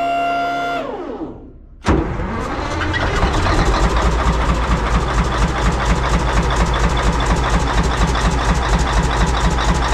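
A steady whine winds down and fades. About two seconds in, the Caterpillar 773B's diesel engine fires with a sudden burst and settles into an even, pulsing idle. It runs with one lifter stuck and a rear rocker arm not moving, which the owner names as the main problem.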